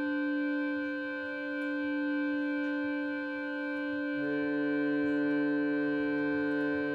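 Harmonium reeds holding a sustained chord. About four seconds in, further notes, including a lower one, join the held chord.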